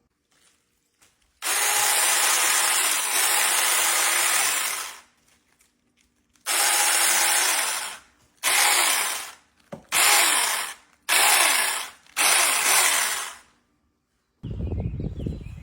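Electric chainsaw run in six short bursts, the first about three seconds long and the rest a second or so each, its motor starting and stopping sharply with silence between, as it cuts through fruit.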